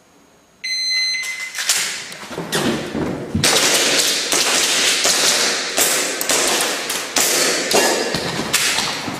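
A shot timer's start beep, then a rapid string of airsoft pistol shots with sharp cracks and knocks, fired in quick succession.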